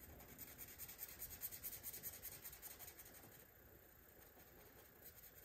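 A marker colouring in a square on a paper chart. The tip makes faint, quick back-and-forth scratching strokes on the paper for about three seconds, then stops.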